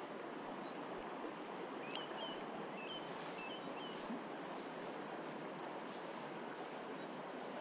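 River water rushing steadily, with a few short high bird chirps about two to four seconds in.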